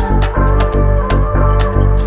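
Background music with a steady beat: sharp percussion hits a few times a second over held bass notes.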